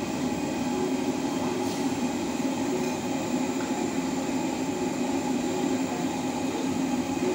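Steady roar of gas wok burners running under the woks.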